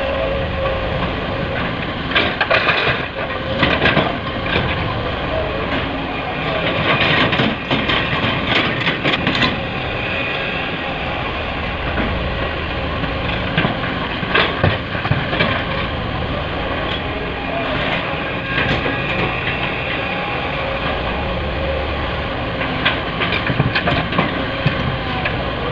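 Heavy diesel machinery running steadily, with repeated bursts of clattering and knocking.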